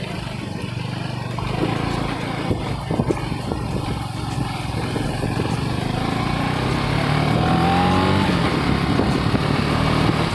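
KTM 250 Duke's single-cylinder engine running under way, rising in pitch and getting louder as it accelerates about two-thirds of the way through. A couple of short knocks come about three seconds in.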